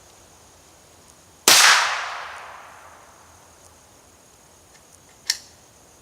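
A single shot from a Ruger 10/22 .22 rimfire semi-automatic rifle about a second and a half in, its sharp crack trailing off in a long echo. A much quieter single sharp click follows near the end, after which the rifle is found to have jammed.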